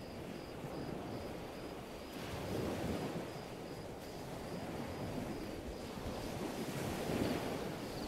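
Sea waves washing on a rocky shore with wind, the wash swelling twice, and a faint high chirp pulsing about three times a second.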